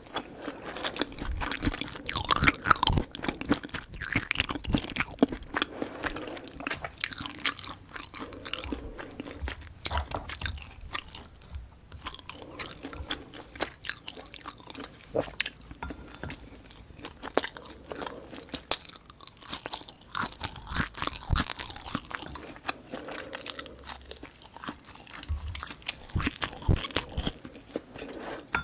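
Close-miked ASMR eating: steady chewing with many sharp, irregular crunches and bites of a Korean home meal.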